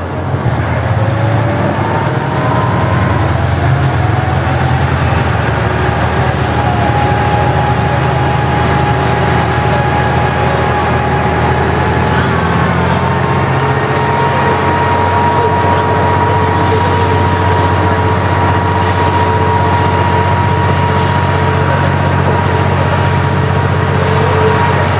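KiHa 40 diesel railcar's engine running hard under power, with a whine that rises in pitch over the first dozen seconds as the railcar picks up speed, then holds steady.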